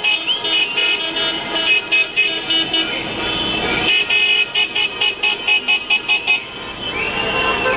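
Vehicle horns honking in quick repeated beeps, about four a second, in two spells with a short break between them, then one longer held honk near the end.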